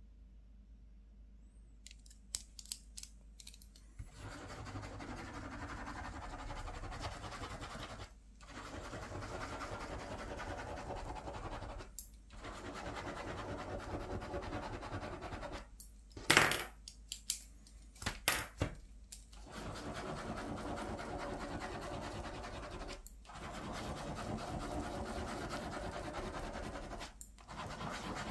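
Ballpoint pen scribbling round and round on paper over a clipboard, in stretches of a few seconds with short breaks between them. A few sharp clicks come about two seconds in, and a cluster of louder plastic knocks and clacks of pens being handled comes around the middle.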